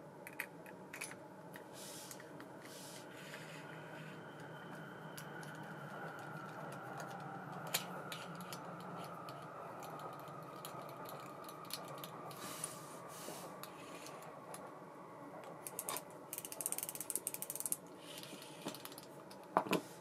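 ABU Ambassadeur 2500C baitcasting reel being worked by hand: scattered clicks from its mechanism and a faint whir from the tuned spool spinning freely, slowly dropping in pitch as it winds down. A quick run of rapid ratcheting clicks comes near the end.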